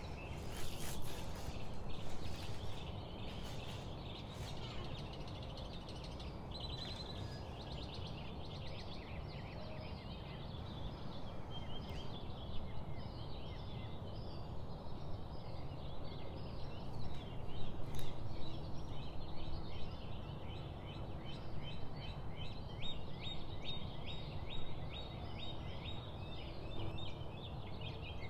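Small birds chirping over a steady low background noise, ending in a quick run of repeated chirps. Plastic cling film crackles in the first few seconds as it is peeled off a ball of dough.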